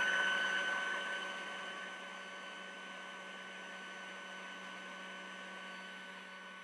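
Electric air pump running steadily as it inflates a Wubble Bubble ball: a hum with a thin high whine over a rush of air, easing down in level over the first couple of seconds and then holding steady.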